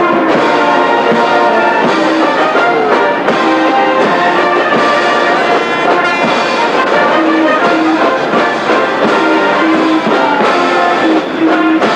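Brass band playing.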